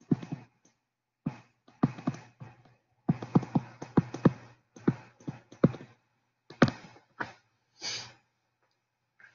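Pen stylus tapping and scratching on a tablet screen as words are handwritten: clusters of quick, sharp clicks that stop a little after eight seconds in.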